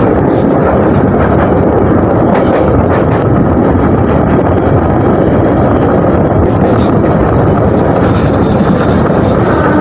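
Passenger train in motion: a steady, loud running noise of the carriage.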